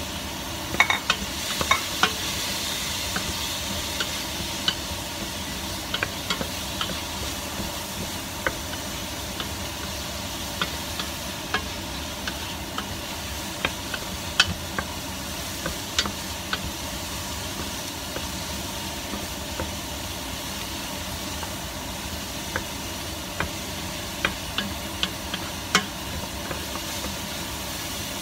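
Sliced mushrooms frying with garlic, onion and green olives in olive oil in a stainless steel stockpot: a steady sizzle, with scattered clicks and knocks as a wooden spoon stirs against the pot, a cluster of them about one to two seconds in.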